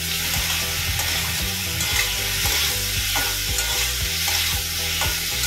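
Metal spatula stirring and scraping potato and ridge gourd pieces coated in poppy-seed paste around a metal kadai, with frequent irregular scrapes and knocks against the pan. Under it, a steady sizzle of the pieces frying in hot oil as the poppy paste is cooked to drive off its raw smell.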